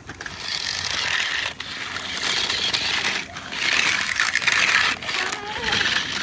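Toy RC 4x4 rock crawler driving over loose gravel, its tyres crunching and scattering stones in four bursts of about a second and a half each.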